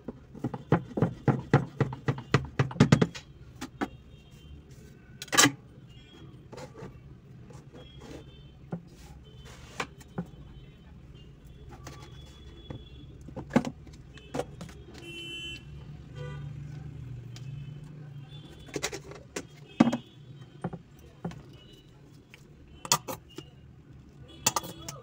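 Kitchen knife chopping on a cutting board: a quick run of about five strokes a second in the first three seconds, then occasional single knocks and clinks of utensils. A low steady hum runs underneath.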